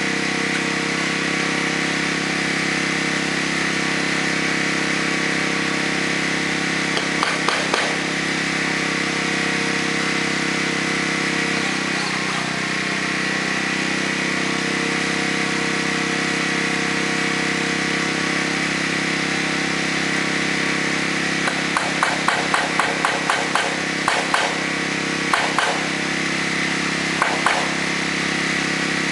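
A small engine drones steadily throughout. Over it come runs of sharp knocks from hammering on the metal roofing: a few about seven seconds in, a quick run of about ten strikes around twenty-two seconds in, and a couple of single knocks near the end.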